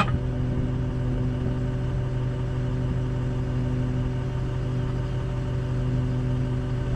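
An engine running steadily at idle, an even hum with no change in speed. There is a single sharp click right at the start.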